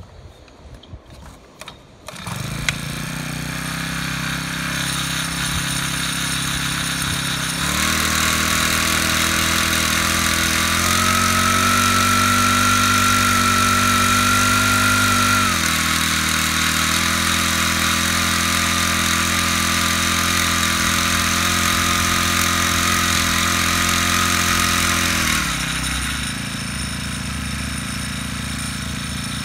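Small four-stroke engine of a Robin RS-HP825 backpack power sprayer starting about two seconds in and idling. It speeds up at about eight seconds as the pump sprays through the wand, and settles back to idle near the end.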